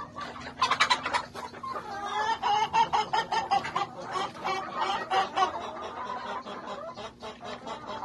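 A mixed flock of Rhode Island Red, Black Australorp and Barred Plymouth Rock hens clucking and squawking, with many calls overlapping. The calls are busiest and loudest in the first five seconds or so and thin out toward the end.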